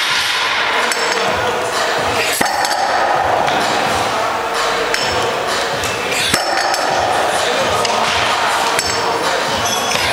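Iron weight plates on a loading pin under a Rolling Thunder grip handle clanking and clinking against each other and the pin as the stack is lifted and held, with a couple of sharp metallic knocks, over steady background noise.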